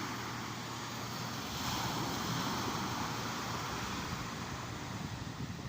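Sea waves washing on the shore, swelling and easing about every two seconds, with wind buffeting the microphone.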